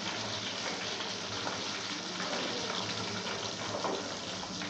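Hot oil sizzling and bubbling steadily as a whole steamed chicken deep-fries in an aluminium pot.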